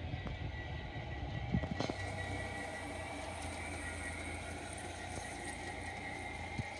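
Large-scale model train hauling Aristocraft Roadrailer trailers rolling past: a steady motor hum and wheel noise, with a few sharp clicks from the wheels on the track about two seconds in and again near the end.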